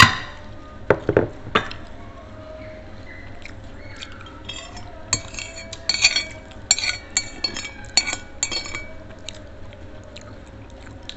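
A metal spoon and fork clinking and scraping against ceramic plates while eating. There are scattered clinks at first, then a busier run of quick clinks in the middle.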